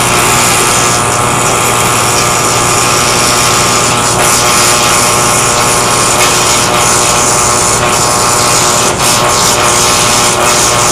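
Welding: a loud, steady hissing buzz over a constant hum, with a few brief crackles.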